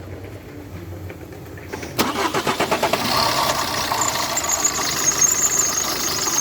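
Car engine cranking and catching about two seconds in, then idling, with a high steady whine joining in around four seconds in. The uploader puts the noise down to a failing water pump whose impeller, loose on its shaft, rubs against the inside of the engine block.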